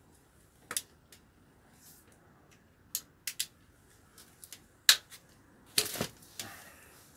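Scattered sharp metallic clicks and clanks from a socket wrench on a cylinder head bolt of a Ford 351 Windsor V8, as the bolt is strained at without breaking loose. The loudest click comes about five seconds in.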